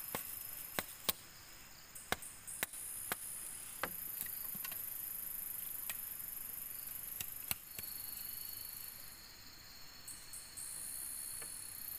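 A knife chopping and splitting a bamboo strip: about a dozen sharp, irregular knocks, most of them in the first eight seconds. A steady high insect trill runs underneath.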